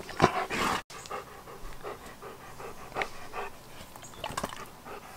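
Old English Sheepdog panting in repeated short breaths, louder in the first second.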